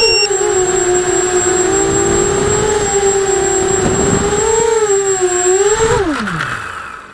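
Eachine Racer 250 quadcopter's brushless motors and propellers whining at a steady, slightly wavering pitch, then spinning down with a falling whine that fades out about six seconds in.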